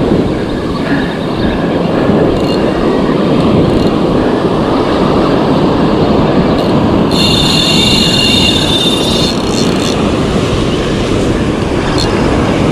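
Loud wind and surf noise on a rod-mounted microphone as a Shimano Socorro SW10000 spinning reel is cranked against a hooked shark. About seven seconds in, a high whine made of several tones lasts around two seconds.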